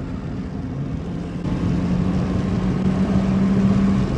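Honda car's engine and road noise heard from inside the cabin: a steady low hum that grows louder about a second and a half in, with an engine tone coming up.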